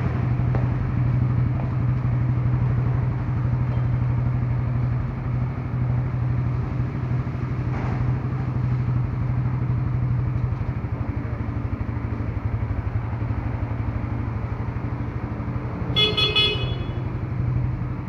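Motorcycle engine idling steadily. About sixteen seconds in, a short horn toot sounds once.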